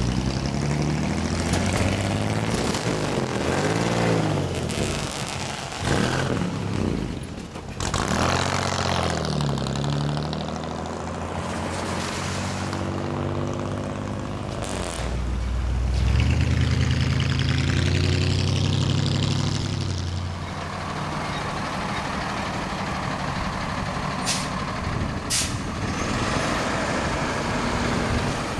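Several old cars and a flatbed tow truck driving past one after another, their engines rising and falling in pitch as they pull away and go by.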